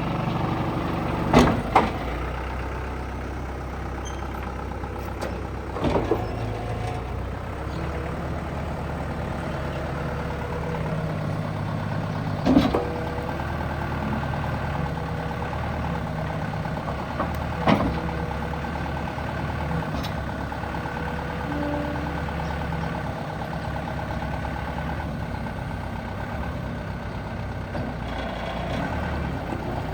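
Komatsu 140 backhoe's diesel engine running steadily, with several sharp knocks spread through, a few seconds apart, from the machine working.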